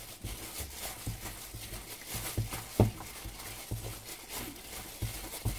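A gloved hand mixing flounder pieces in a thick starch and egg-white batter in a metal bowl: wet squishing with irregular soft knocks, and one sharper click a little before halfway.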